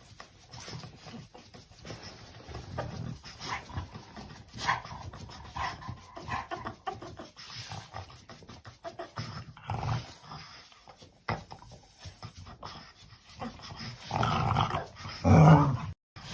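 A dog making short, irregular vocal sounds, the loudest ones near the end.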